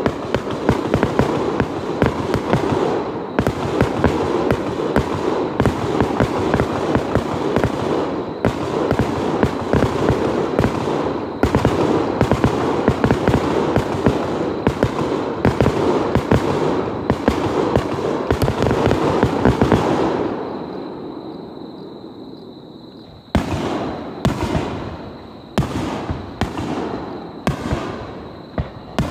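Fireworks display: a dense barrage of rapid bangs and crackling for about twenty seconds that fades out, followed by single shell bursts about once a second near the end.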